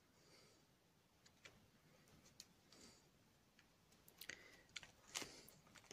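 Near silence with a few faint clicks and rustles: hands working a small brass brad through a cluster of artificial fabric leaves.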